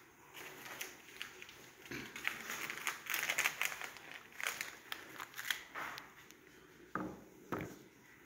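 Irregular crunching and crinkling close to the microphone, thickest a few seconds in, with a few sharper clicks near the end.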